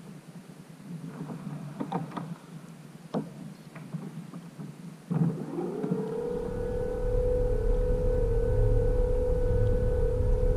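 Light knocks on the kayak hull, then about five seconds in a thump and the Bixpy V2 electric outboard motor spins up: a whine that rises quickly to a steady pitch and holds, over a low hum.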